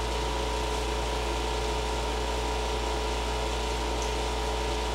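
Window air conditioner running with a steady hum and fan noise, a low drone under two constant mid-pitched tones.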